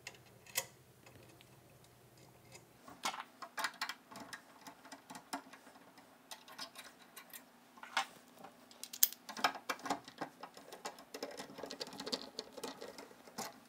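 Irregular small clicks, taps and scrapes of a steel bolt, nut and drill bit being worked into a 3D-printed plastic bracket on an aluminium-rail printer frame by hand. A screwdriver turns the bolt near the end.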